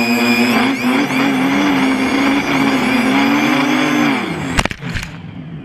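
Quadcopter's 2300kv brushless motors and propellers running with a steady buzzing whine. About four seconds in, the pitch drops as it comes down onto the grass. Two sharp knocks follow as it touches down, and the motors wind down.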